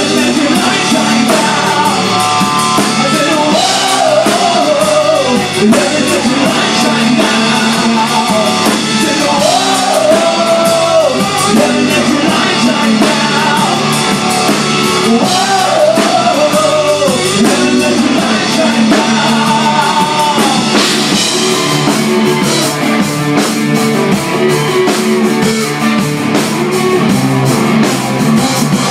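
Live rock band playing loud: electric guitar and drum kit with a bending lead melody line over them. About two-thirds of the way through, the cymbals become much busier and brighter.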